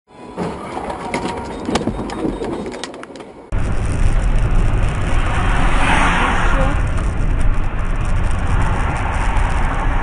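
Motor-vehicle road noise: a quieter stretch with a few clicks, then about three and a half seconds in a sudden jump to a louder, steady low rumble of engine and road noise.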